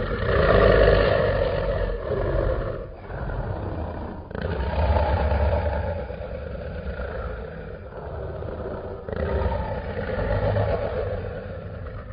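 Custom monster roar sound effect that blends Godzilla's roar with a Tyrannosaurus rex roar. It is heard three times: one right at the start, one about four seconds in and one about nine seconds in, each lasting a few seconds, with a deep rumble underneath.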